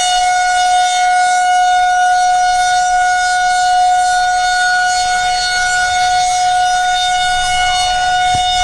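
Outdoor tornado warning siren sounding a steady, unwavering tone: a real tornado warning activation.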